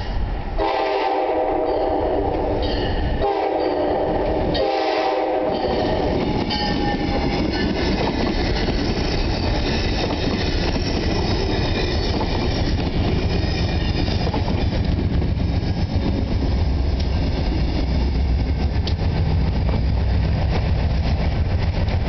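Amtrak Downeaster passenger train sounding its horn in three blasts for the grade crossing during the first six seconds, then passing close by with wheels clattering over the rails. A steady low rumble grows louder in the second half.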